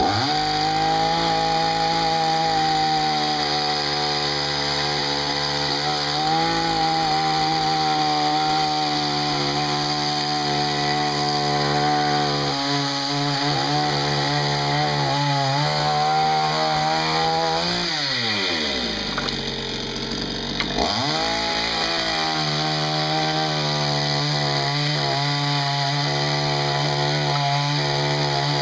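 ZOMAX 5800 two-stroke gasoline chainsaw running at high revs, its pitch wavering in places. About two-thirds of the way through, the revs fall away to idle for a couple of seconds, then rise again to full speed.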